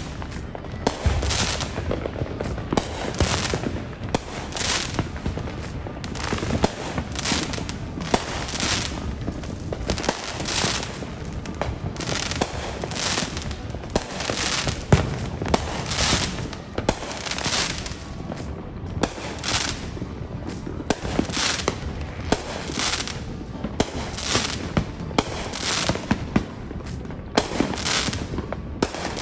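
Fireworks going off one after another, a steady run of short, sharp bursts about one a second.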